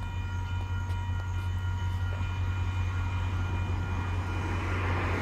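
VIA Rail passenger train led by locomotive 6443 approaching: a steady low rumble with faint steady high-pitched tones, and the train noise swelling louder near the end as it draws closer.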